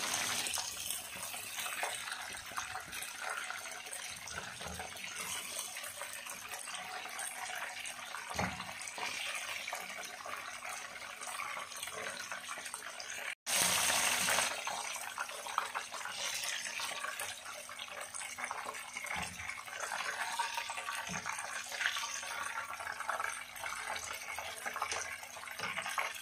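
Chicken drumsticks frying in hot oil in a nonstick pan: a steady crackling sizzle, with small taps and scrapes from a plastic slotted spatula as the pieces are lifted out. About halfway the sound drops out for a moment and comes back briefly louder.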